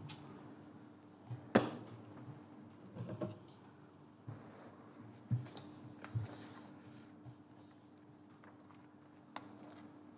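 A man settling at a desk and handling papers close to a desk microphone: paper rustling and several light knocks and bumps on the bench over a steady hum, the sharpest knock about a second and a half in.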